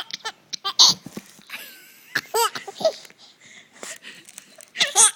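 Eight-month-old baby laughing in short bursts of giggles with pauses between them, set off by an adult's pretend sneeze.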